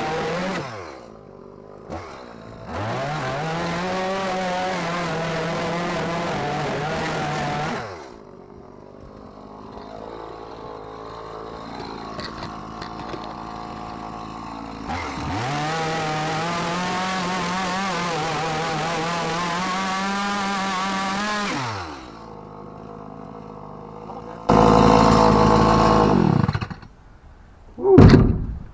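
Chainsaw held at full throttle for about five seconds at a time, twice, cutting through the fiberglass transom of a boat, and dropping back to a lower idle between cuts. Near the end there is a short, louder noisy burst, then a brief rev.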